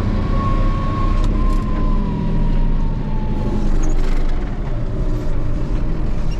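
Tractor engine running steadily under load, with a thin whine that slowly falls in pitch over the first three seconds.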